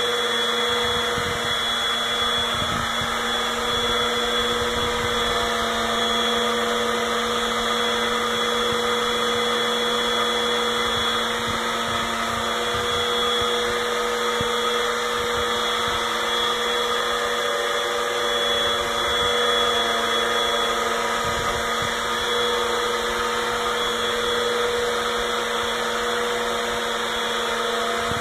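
Vacuum cleaner running steadily, its motor noise unchanging, with a few faint constant tones.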